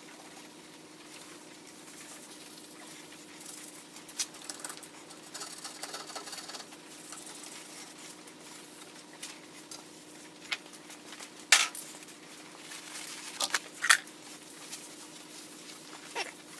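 Small objects being handled, with a few scattered light clicks and taps and a stretch of soft scraping or rubbing, over a faint steady hum.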